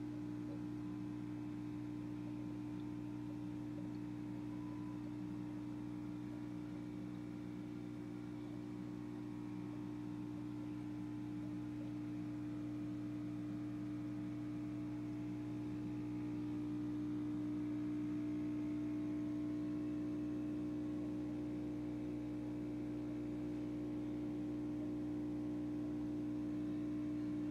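Steady low electrical hum of a running aquarium pump, one unchanging tone over a deeper drone, growing slightly louder about two-thirds of the way through.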